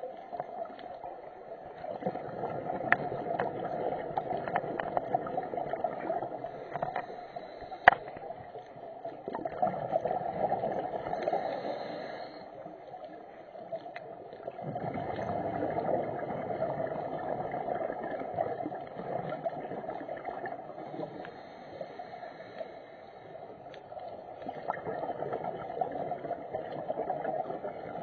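Scuba breathing heard underwater: a diver's regulator and exhaled bubbles, coming in swells a few seconds long, several seconds apart. A few sharp clicks stand out, the loudest about eight seconds in.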